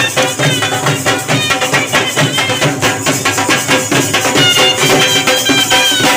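A live dhol drum and shehnai play folk dance music: steady, driving drum strokes under a shrill, wavering reed melody. The pipes hold longer high notes in the second half.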